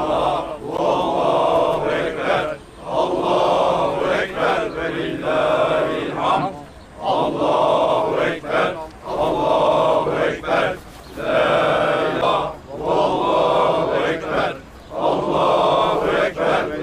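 Male voices chanting a devotional melody in long sung phrases about two seconds each, with short breaks between them.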